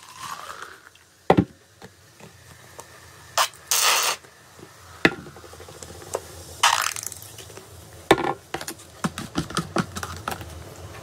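Soda poured from plastic bottles into a plastic cup with a soft splash, then sharp knocks and two short hissy rushes as the bottles are handled. From about eight seconds in, a quick run of clicks and scrapes as the drink is stirred in the plastic cup.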